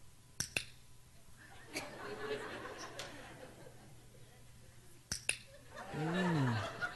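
A handheld training clicker is clicked twice, each a quick double click, about half a second in and again about five seconds in, marking a behaviour as correct. Laughter rises between the clicks, and near the end a loud drawn-out vocal exclamation rises and falls in pitch.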